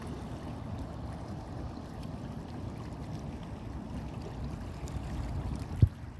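Steady low rumble of wind on the microphone with lake water at a rocky shore, and one sharp low pop of a gust hitting the microphone near the end.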